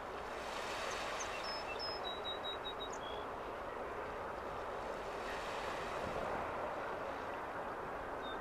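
The Fundy Rose car ferry passing close by, a steady drone from its engines and hull. A few short high bird chirps sound between about one and three seconds in.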